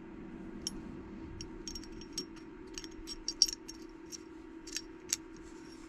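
Small, sharp metal clicks and taps of AR-15 bolt carrier group parts being handled, as the firing pin is slid into the bolt carrier, over a faint steady hum. The clicks are scattered and irregular, the loudest about three and a half and five seconds in.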